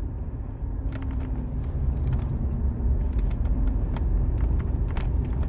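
Steady low road and engine rumble inside the cabin of a 1999 Jaguar XJ8 on the move, with a faint constant hum.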